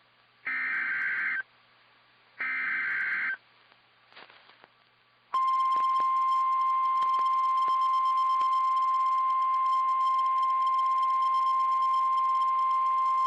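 NOAA Weather Radio Emergency Alert System signal: two roughly one-second bursts of buzzy digital SAME header data, then, about five seconds in, the steady single-pitched 1050 Hz warning alarm tone that comes before a tornado warning message.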